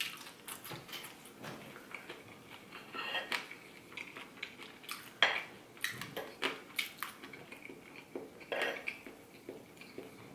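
Metal fork clinking and scraping on a ceramic plate as food is cut and picked up: scattered sharp clicks and short scrapes.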